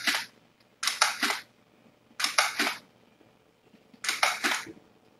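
Short clusters of sharp clicks, three or four clicks to a cluster, repeating about every second and a half, four times.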